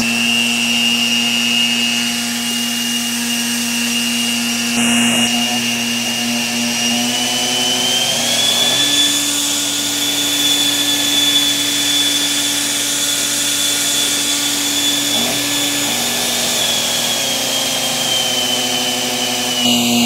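Bare blender motor, a brushed universal motor with its jar off, running on its electronic speed-control board: a steady whine and hum. About eight seconds in the pitch rises as the board raises the motor voltage from about 89 to over 100 volts, then falls back near the end.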